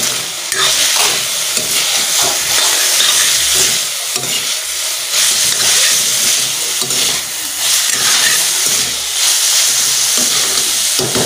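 Fiddlehead fern shoots and potato sizzling as they fry in oil in a steel pan, the hiss swelling and easing as a steel spoon stirs them.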